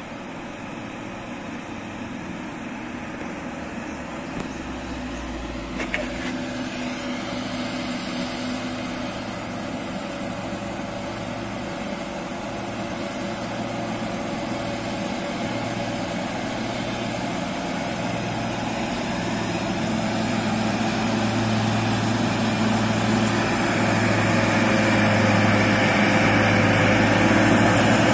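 Diesel engines of heavy trucks loaded with oil palm fruit bunches running as they drive slowly toward the listener on a gravel road, growing steadily louder. A single sharp knock about six seconds in.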